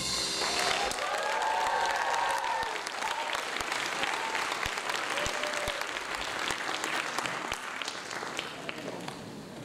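Audience applauding, the clapping dying down toward the end.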